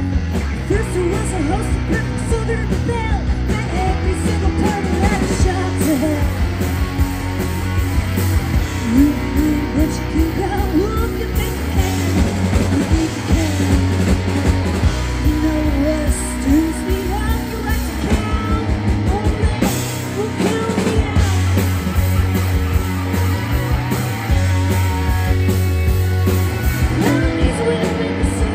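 Live rock band playing a song: electric guitars, bass guitar and drums, with a woman singing lead.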